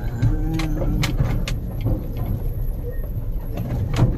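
Mahindra Bolero pickup's diesel engine and road noise heard from inside the cab on a rough road, a steady low rumble. Frequent irregular sharp clicks and rattles run through it.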